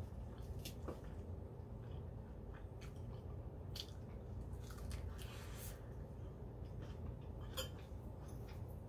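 A few light clicks of a metal fork against a salad bowl, then crunchy chewing of a mouthful of salad leaves, with a steady low hum underneath.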